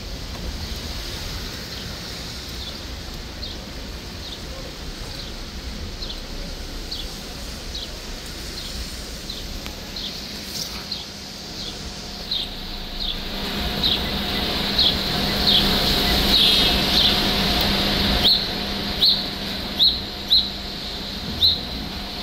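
Heavy rain and traffic on a wet city street, with a vehicle swelling past partway through and a low engine hum. Over it, a run of short, high, falling chirps repeats about once a second, growing louder near the end.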